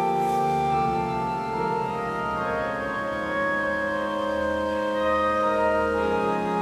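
Church organ playing slow, held chords; the notes shift every second or two as new tones enter and others drop out.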